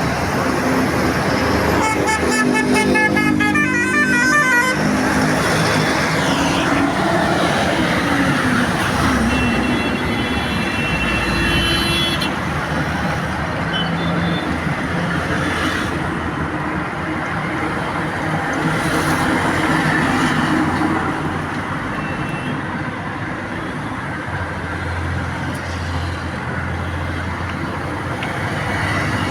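Buses and other traffic passing on a road, a continuous engine and tyre rumble. Vehicle horns sound about two seconds in and again around ten seconds in, each lasting a couple of seconds.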